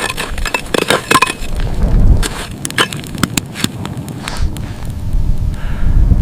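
Irregular sharp crackles and snaps, densest in the first second or so and sparser after, over a low rumble that grows again near the end.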